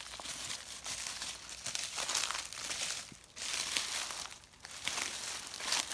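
Footsteps crunching and rustling through dry fallen leaves, walking steadily with two short lulls, about three and four and a half seconds in.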